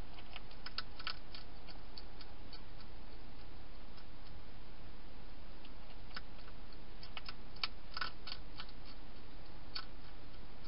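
Wild hedgehog crunching dry food inside a plastic feeding box: irregular small crisp clicks and crunches, a bunch about a second in and more from about six to ten seconds in, over a steady hiss.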